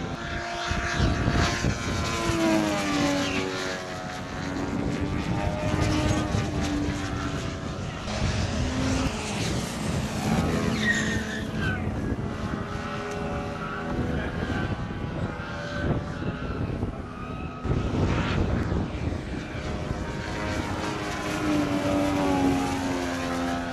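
Engine and propeller of a large radio-controlled aerobatic model plane in flight. The pitch repeatedly rises and falls over a few seconds at a time as the throttle opens and closes through manoeuvres and passes.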